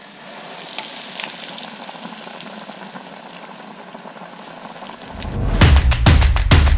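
Breaded bass fillets going into hot oil in a deep fryer, a steady crackling sizzle. About five seconds in, loud drum beats of intro music take over.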